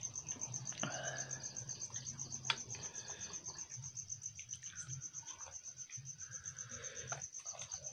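A cricket chirping in a fast, even pulse at a steady high pitch, over a faint low hum, with a light click about two and a half seconds in.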